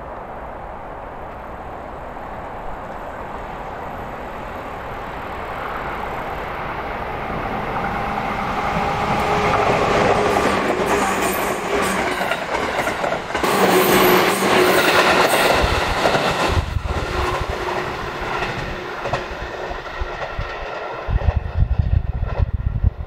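JR East 211 series electric multiple unit passing close by. Its running noise swells as it approaches, then the wheels clatter in a clickety-clack over the rail joints, loudest as the cars go past, and fade. Near the end a gusty low rumble takes over.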